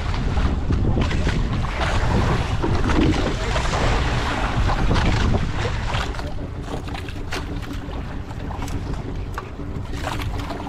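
Wind buffeting the microphone and water rushing aboard a small boat at sea. The rushing eases about six seconds in, leaving a steady low hum from the boat's motor and a few short knocks.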